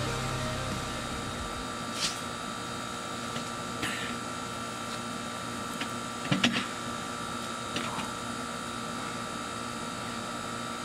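A few short scrapes and knocks from someone climbing out of a metal basement window well onto gravel, the loudest about six and a half seconds in. Under them runs a steady hiss with a faint steady whine.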